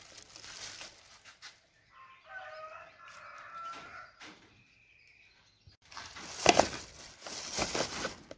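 Plastic bag and trimmer-line packaging crinkling and rustling as spools are handled, loudest in a run of crackles from about six seconds in. A brief animal call sounds in the background about two to four seconds in.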